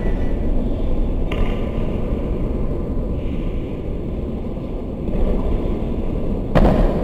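Steady low rumbling background noise, with a short knock just over a second in and a louder thump near the end.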